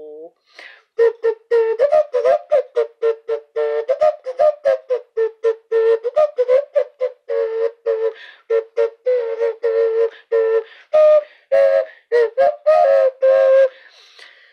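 A hand-held clay vessel flute blown in quick, short toots, about three or four a second, its pitch wobbling up and down between a few low notes, with a few longer held notes near the end.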